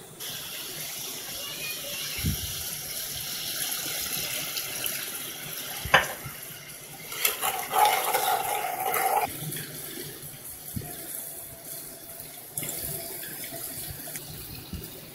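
Mince and spices frying in hot oil in an aluminium kadai, sizzling steadily, with a couple of knocks from the slotted spoon against the pan. About seven seconds in, water is poured into the hot oil, giving a louder burst of sizzling and bubbling for a couple of seconds before the sizzle settles lower.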